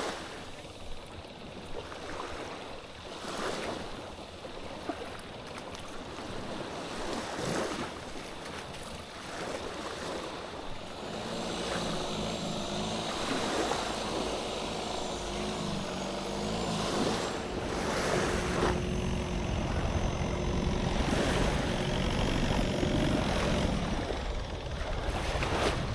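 Waves washing ashore with wind on the microphone; from about eleven seconds in an engine joins, running and growing louder.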